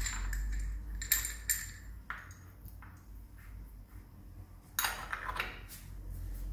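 Metal clinks and scraping of an open-end spanner against chrome shower-mixer wall connectors as they are screwed into the wall outlets. A few sharp clinks come about one to two seconds in, and a louder clattering scrape about five seconds in.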